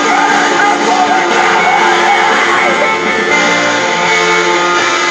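Loud heavy rock music with electric guitar and sung vocals, playing steadily without a break.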